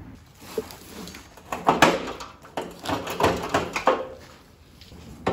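Rusted steel frame rail of a 1964 Impala X-frame being wrenched and shifted by hand, giving a run of irregular metal clanks and scrapes, loudest a little under two seconds in and about three seconds in. The piece is still partly welded in and stuck.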